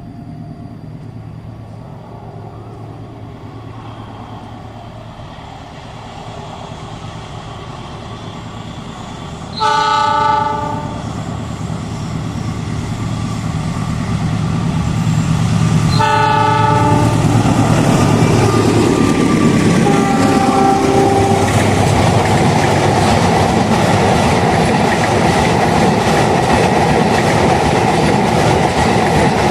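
A train hauled by a CC 206 diesel-electric locomotive approaches with its engine hum growing, sounds its multi-tone horn in two short blasts about ten and sixteen seconds in, then passes loudly with clickety-clack of wheels over the rail joints.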